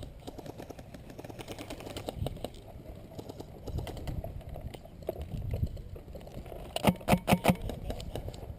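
Quick burst of about five sharp pops from an airsoft gun about seven seconds in, over a steady patter of small clicks and rustles.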